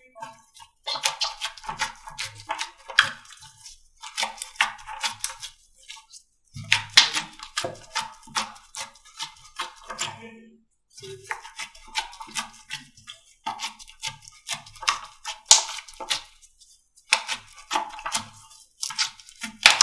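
Slime being squeezed and poked by hand, making bursts of wet clicks and crackles that last a second or two, with short pauses between them.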